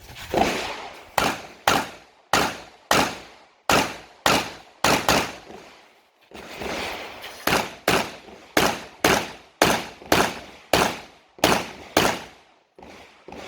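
Open-division Bul SAS II UR pistol fired rapidly through a stage, about twenty shots roughly half a second apart, with a brief break about six seconds in.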